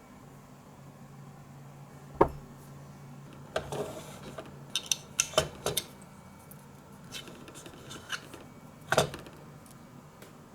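Small dishes and utensils clinking and clattering: a sharp knock about two seconds in, a quick run of clinks a little later, and a few single clinks near the end.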